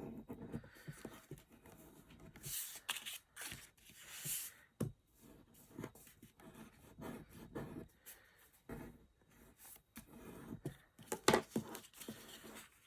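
Stiff 300 GSM cardstock pieces being handled and folded: irregular rustling and scraping with short taps and clicks.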